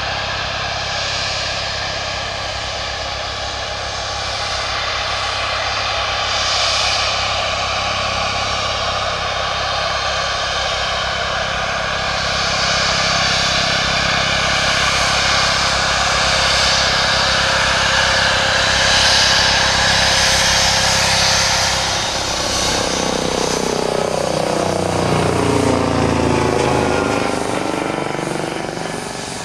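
The two Rolls-Royce BR710 turbofan engines of a Bombardier Global Express business jet running at taxi power, a steady jet whine and hiss with a high tone, as the jet rolls slowly past. In the last few seconds the sound takes on a sweeping, swirling quality as the engines pass closest.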